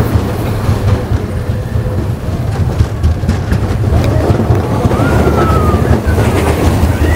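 Big Thunder Mountain Railroad mine-train roller coaster running on its track: a loud, steady low rumble from the cars and wheels, with a few clacks in the middle and wind on the microphone.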